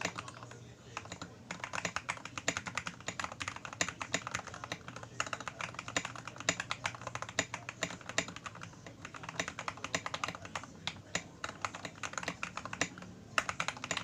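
Fast typing on an MK870 mechanical keyboard with Gateron milky yellow linear switches and SA-profile keycaps: a continuous, uneven stream of keystroke clacks, briefly thinning about half a second in.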